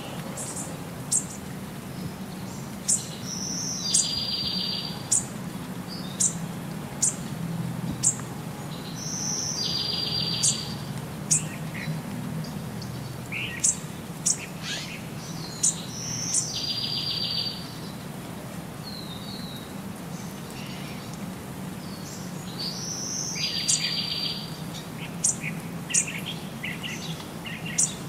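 Birds singing: short sharp high chirps about once a second, and every six or seven seconds the same one-second buzzy trill, over a faint low steady hum.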